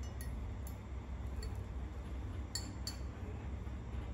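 A metal spoon clinking against the inside of a mug, about five light clinks with a brief ring, the two loudest close together near the end.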